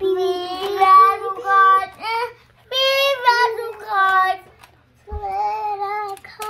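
A young child singing in short phrases of held, high notes, with a brief break about three quarters of the way through.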